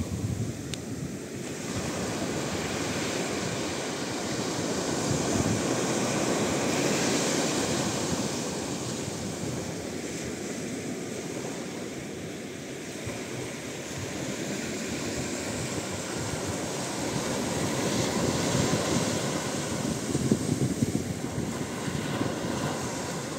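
Small sea waves breaking and washing up on a sandy beach, the surf swelling and fading every several seconds, with wind blowing on the microphone.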